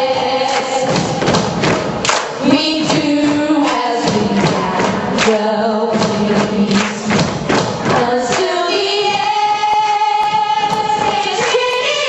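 Music: a group of voices singing over a backing track with a heavy beat, moving to long held notes near the end.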